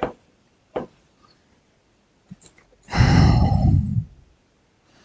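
Two light clicks, then about three seconds in a loud breathy exhale like a sigh, lasting about a second.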